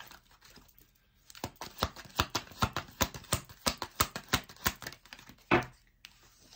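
A deck of tarot cards shuffled by hand: a quick run of soft card clicks, about six a second, from a second and a half in until near five seconds. Then one louder short thump.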